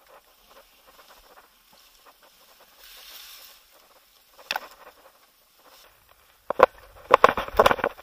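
Rustling and crackling of grass, leaves and twigs being brushed through and handled: a short rustle midway, then a dense run of sharp crackles near the end as a leafy branch is grabbed and pulled.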